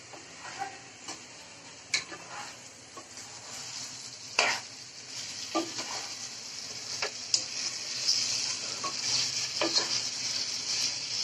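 Duck meat sizzling in spice paste in a non-stick pot while a spatula stirs it, knocking and scraping against the pot now and then, the loudest knock about four and a half seconds in. The sizzle grows louder over the second half as the meat is sautéed (kosha) in the spices.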